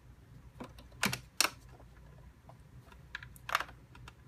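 A handful of sharp clicks and taps as bulky fabric is maneuvered under a sewing machine's presser foot. The loudest come between one and one and a half seconds in and again about three and a half seconds in. The machine itself is not stitching.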